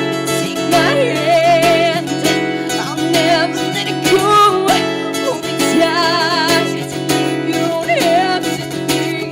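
A woman singing a slow folk song with wavering vibrato on the held notes, over a steadily strummed acoustic guitar. The voice comes in about a second in.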